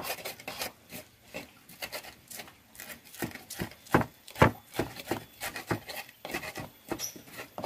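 Stone pestle crushing and grinding shallots and chillies in a clay mortar: irregular knocks and scraping, with a few sharper knocks around the middle.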